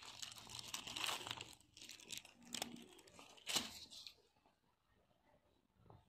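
Plastic film wrapping a multipack of paper towels crinkling as the pack is handled and set into a wire shopping cart, with a sharper crackle about three and a half seconds in. The crinkling stops about four seconds in.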